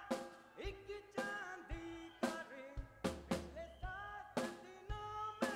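Rock band playing live: a drum kit keeps a steady beat, a little under two hits a second, under electric guitars and bass guitar.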